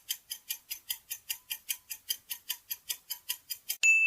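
Countdown timer sound effect: rapid clock ticks, about five a second, cut off near the end by a single bright bell ding that rings on and fades.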